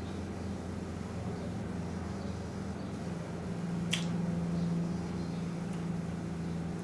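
Room tone: a steady low hum, with a single sharp click about four seconds in.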